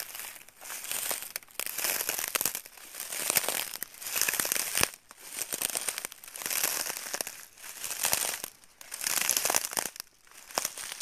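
Crinkling, rustling noise close to the microphone, coming in swells about a second apart, and cutting off suddenly at the end.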